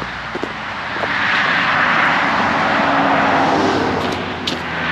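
A motor vehicle passing by: a steady rush of engine and road noise that swells to a peak in the middle and eases off near the end.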